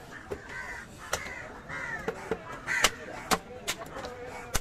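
Crows cawing over and over, with several sharp knocks of a heavy knife striking a wooden chopping block as a fish is cut up.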